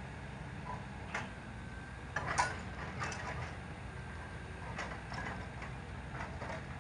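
Volvo crawler excavator's diesel engine running steadily, with scattered sharp knocks and clanks as the hydraulic breaker is moved about the rock. The loudest knock comes just after two seconds in. The breaker is not hammering: there is no rapid run of blows.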